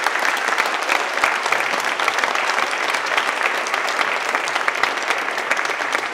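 Audience applauding, many hands clapping steadily, the applause dying away just after the end.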